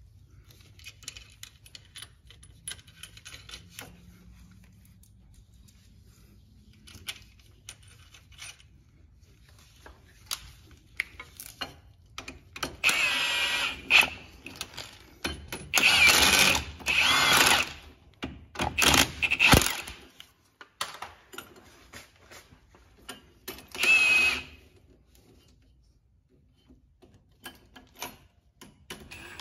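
Cordless power driver running in about five short bursts of one to two seconds with a steady whine, spinning nuts onto sway-bar mounting hardware. Faint clicks and clinks of metal parts come in the quieter stretches.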